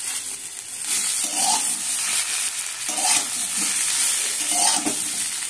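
Vegetables frying in a metal kadai, sizzling steadily while a metal spatula stirs and turns them, scraping the pan a few times at roughly even intervals.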